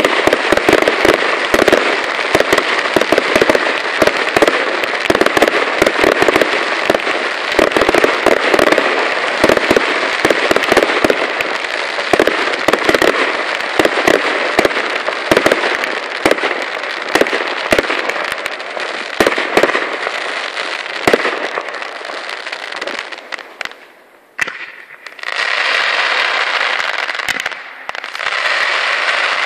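Fireworks display: a dense run of crackling effects and sharp bangs. It thins and drops away briefly about three-quarters of the way through, then a new dense crackle starts.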